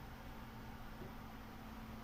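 Faint steady background hiss with a low hum: room tone, with no distinct event.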